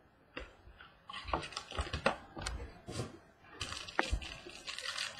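Hands opening and handling a small baseball-card box and what is inside it: a series of sharp clicks and taps, about half a dozen, with rustling between them and the loudest click about four seconds in.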